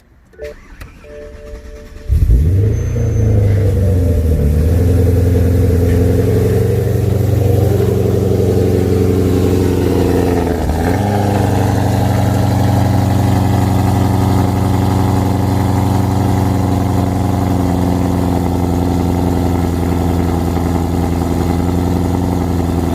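Cold start of a supercharged BMW E92 M3's V8. After a short crank the engine catches about two seconds in with a loud flare, then settles into a steady high cold idle, with a brief dip in revs about halfway through.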